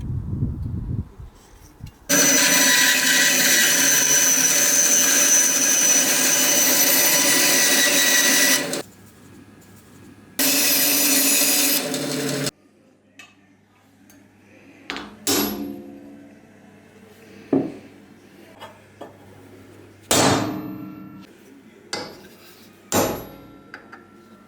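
A power tool working wood runs loudly with a steady whine, twice: for about seven seconds, then again for about two. After it stops come several separate sharp knocks, each ringing briefly.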